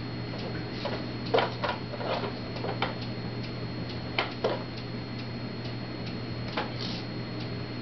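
Plastic toys on a baby activity centre clicking and clacking as a baby handles them: a dozen or so irregular taps, several close together a second or two in and a couple more around four seconds in, over a steady low hum.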